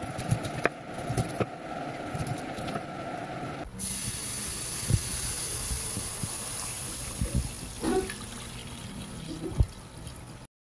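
A knife chopping through pineapple rind onto a wooden cutting board, a few sharp knocks. About four seconds in, water starts pouring into a pot, a steady splashing hiss with the odd knock, and it stops suddenly near the end.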